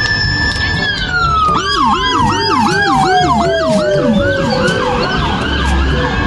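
Electronic vehicle siren on a passing car. One high wail tone holds, then slides slowly downward over several seconds. About a second and a half in, a rapid yelp joins it, sweeping up and down about three times a second.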